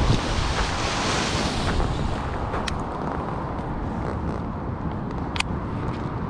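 Wind buffeting the microphone as a steady rumble, heaviest in the first two seconds, with a few faint clicks.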